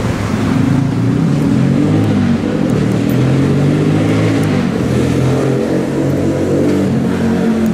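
Stadler GTW diesel railcar approaching slowly round a curve, its diesel engine running with a note that drifts up and down in pitch. A few faint clicks of wheels over rail joints come near the end.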